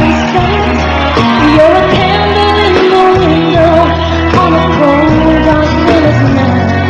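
Pop song with a singing voice over band backing.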